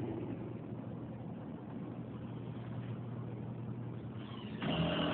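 Distant construction machinery engine running with a steady low hum; near the end it suddenly gets much louder, a heavy engine revving up under load.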